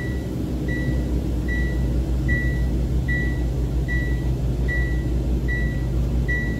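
Iveco truck's diesel engine running, heard from the cab, under a warning beeper that sounds short, even beeps a little more than once a second.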